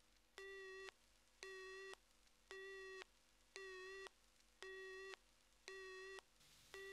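Telephone busy tone from a handset after the other end has hung up: a steady low beep, half a second on and half a second off, six times.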